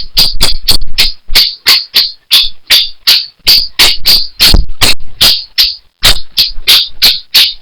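Insect chirping, cricket-like: a run of short, high chirps, about three to four a second.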